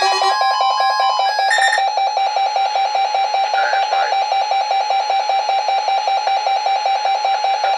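Weather radio receivers sounding their alert alarms on a Required Weekly Test. A loud, rapidly pulsed beeping tone runs on throughout, and other radios' higher tones stop within the first second and a half.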